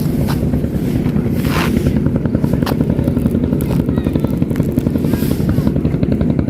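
A small engine running steadily nearby, a fast even chugging.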